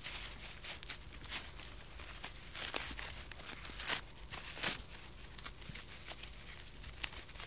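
Irregular crackles and soft rustling clicks over a steady hiss and low hum, with a few louder crackles around the middle.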